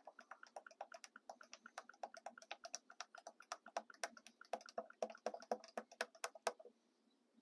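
Used oil draining from a vacuum fluid extractor's hose into a plastic bucket, with fast, irregular glugging clicks that stop about six and a half seconds in.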